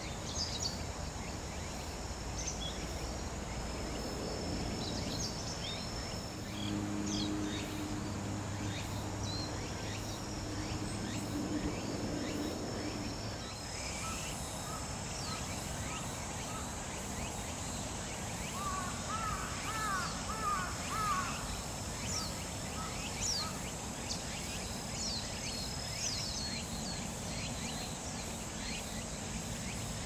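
Japanese wagtail giving short, sharp calls now and then over the steady rush of stream water, with a thin, steady insect buzz. About two-thirds of the way in, a quicker run of lower looping notes is the loudest sound.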